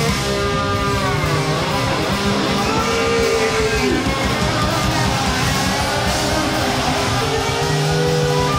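Hard rock song played live by a full band, led by electric guitar holding notes and bending them, with one long note bent down a little before the middle.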